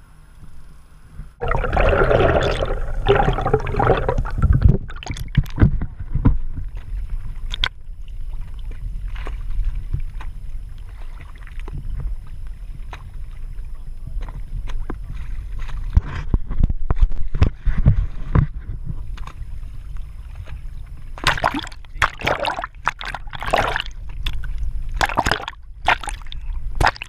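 Sounds aboard a boat on open water: a steady low rumble with water sloshing and gurgling against the hull. There are scattered sharp knocks, and loud rushing noise comes twice, early on and again near the end.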